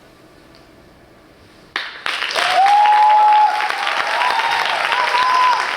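Audience applause that breaks out suddenly about two seconds in after a quiet stretch, with long held cheers or whistles over the clapping.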